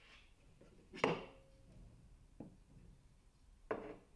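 Three knocks of a cut metal profile being set down and pushed against a mitre saw's metal fence and table; the loudest, about a second in, rings briefly.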